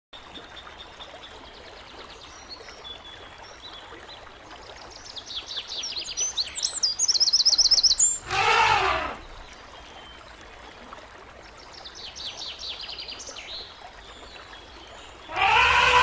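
Elephant trumpeting twice: two loud calls, each about a second long, that rise and then fall in pitch, one about halfway through and the other near the end. Small birds chirp and trill between them.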